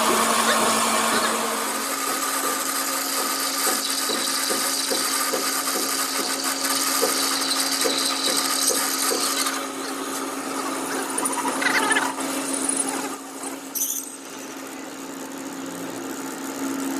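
A power tool running with a steady hum and hiss; the hiss drops away about ten seconds in, followed by two short, sharper sounds.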